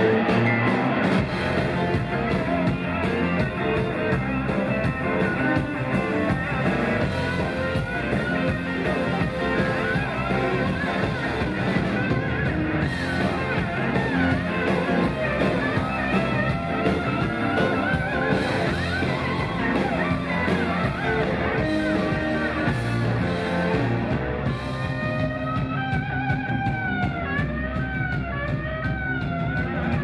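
Rock band playing live with electric guitars, bass and drums. Near the end the backing thins and a lead electric guitar plays bending notes.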